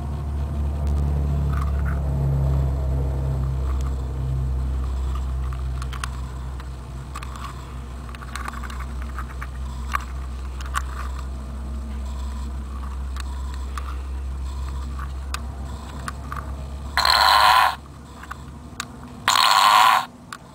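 Fart-sound keychain playing two short recorded fart noises through its tiny speaker, each under a second and about two seconds apart, near the end. Before them there is a steady low hum with scattered light clicks.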